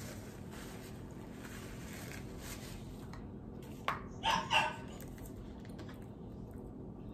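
A dog barking twice in quick succession about four seconds in, just after a sharp click, over a steady low room hum.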